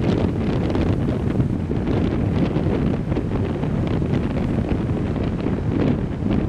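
Wind buffeting the microphone as a steady low rumble, with the wash of breaking sea surf beneath it.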